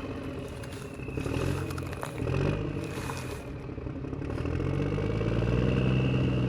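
A vehicle engine runs steadily, drops in pitch about two seconds in, then revs back up after about four seconds, with a thin high whine above it and some light clattering.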